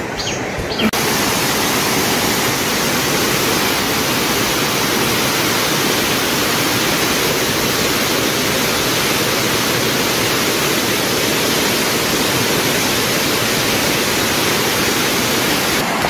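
Steady rush of fast-flowing or falling water, an even, unbroken noise that starts suddenly about a second in.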